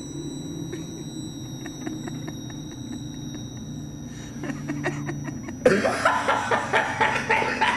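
A low steady hum with a few faint clicks, then about six seconds in a man's voice breaks in suddenly with a loud shout.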